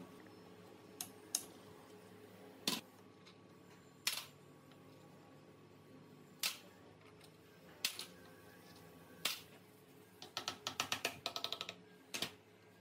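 Hand tools clinking against the metal of an old Honda Super Cub C50 engine as it is taken apart: sharp single clicks every second or so, then a quick run of about a dozen clicks near the end.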